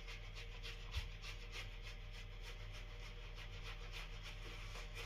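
Synthetic-knot shaving brush working lather on the face: faint, scratchy brush strokes about three a second.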